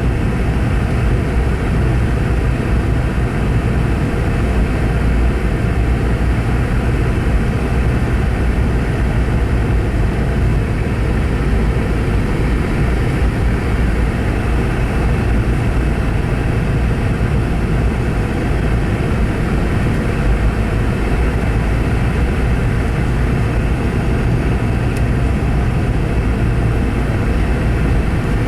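Steady engine and airflow rumble heard inside the cabin of a Boeing 717 airliner, deep and even with no distinct bumps or changes.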